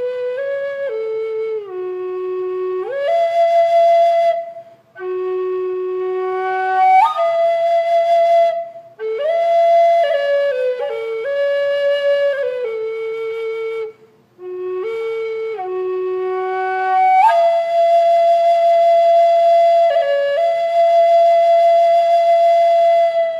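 Native American flute playing a slow solo melody, one note at a time, stepping up and down. The phrases are broken by three short pauses for breath, and near the end it settles into a long held note.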